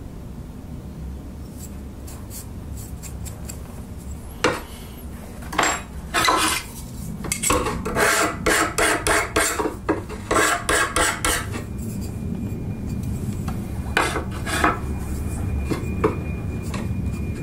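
Hand file rasping over the edge of a small steel plate, the hibachi's ash leveler cut from scrap iron, in quick strokes of about three or four a second for several seconds. A few single strokes follow near the end.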